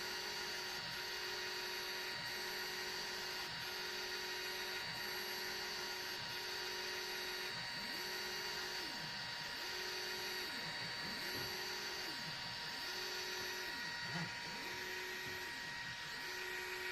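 Small EasyThreed K10 3D printer printing: its stepper motors whine in short repeated moves, about one or two a second, the pitch rising and falling as the print head speeds up and slows, over a steady high hum.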